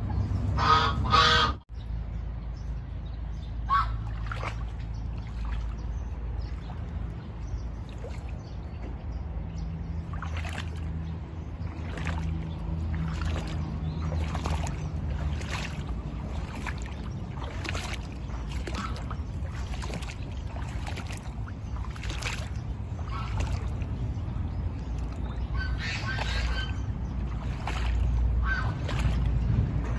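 Geese honking loudly for under two seconds, cut off abruptly. Then a steady low rumble with soft regular strokes about once a second, and another brief call near the end.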